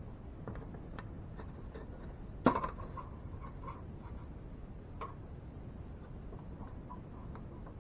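Light taps and clicks of plywood and pine pieces being handled and set against each other, with one sharper wooden knock about two and a half seconds in.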